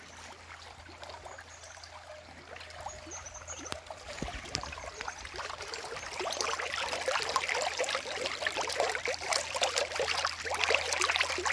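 Shallow stream water trickling and gurgling. From about six seconds in, a dense patter of small splashes grows louder as curimatã fish push upstream through the shallows.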